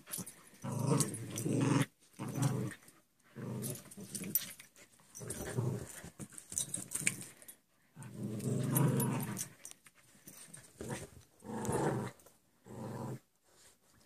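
Two dogs growling in a play fight while tugging at and wrestling over a stuffed toy: repeated growls, each about a second long, with short pauses between.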